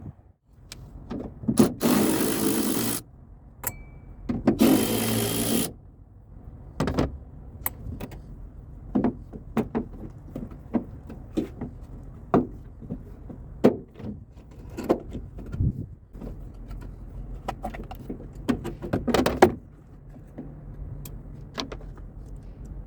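Hands working on a pickup truck's turn signal light assembly to change the bulb: a string of small plastic and metal clicks, knocks and rattles, with two short bursts of harsh scraping noise about two and four and a half seconds in.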